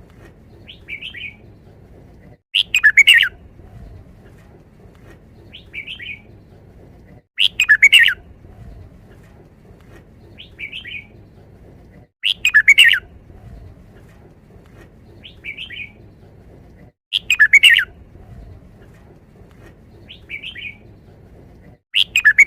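Red-whiskered bulbul singing its loud, quick five-syllable song phrase five times, about every five seconds. A softer short chirp comes between phrases.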